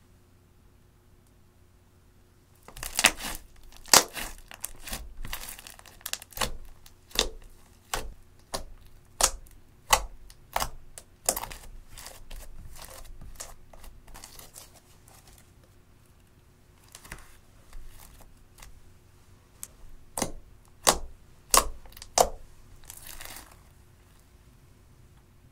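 Thick slime squished, poked and stretched by hand, giving a run of sharp pops and crackling clicks as air pockets burst. It starts a few seconds in, thins out midway, picks up again and stops shortly before the end.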